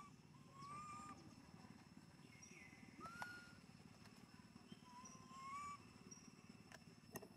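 Faint animal calls: about four short whistled calls that rise in pitch, a second or more apart, the last one longer, over a low background hum. A couple of sharp clicks come through, one in the middle and one near the end.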